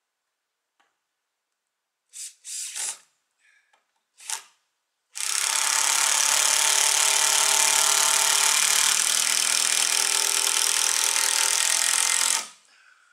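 A few brief bursts, then a power drill running steadily for about seven seconds before it stops abruptly, as used in fastening the timber rafters of a shed roof.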